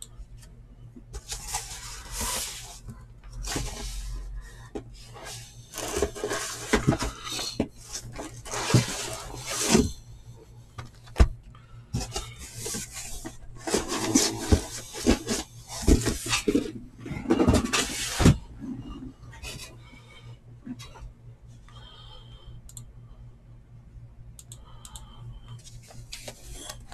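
Irregular rustling, scraping and light knocks of things being handled and moved on a desk, busiest in the first two-thirds and sparser near the end.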